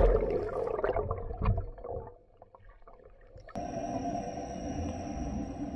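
Rushing splash and bubbles as a scuba diver enters the sea, loud at first and dying away over about two seconds. After a short lull, a steady underwater hum with a thin, constant high whine starts suddenly, a little over halfway through.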